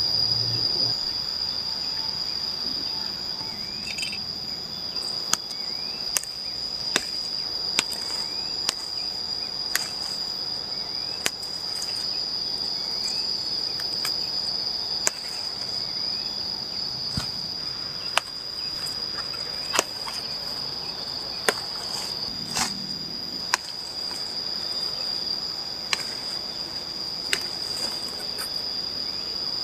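Steady high-pitched drone of insects, with sharp clicks at irregular intervals of about one to two seconds.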